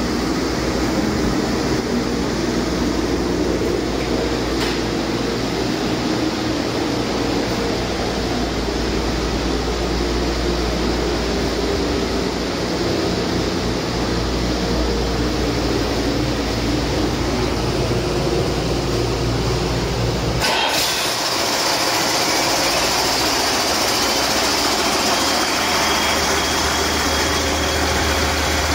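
1998 Cummins C8.3 inline-six turbo diesel running steadily on a test run. About two-thirds of the way through, the sound changes abruptly to less rumble and more hiss, with a thin high whine from the turbocharger rising slightly.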